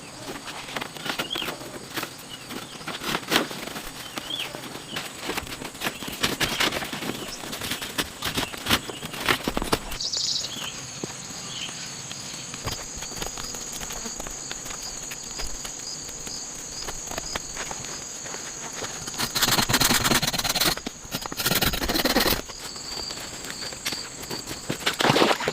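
Irregular knocks and rustling, then from about ten seconds in a steady high insect trill with a pulsing chirp under it, twice covered by loud bursts of rustling near the end.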